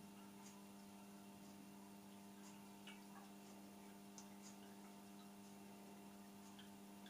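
Near silence: a faint steady electrical hum with a few faint scattered clicks.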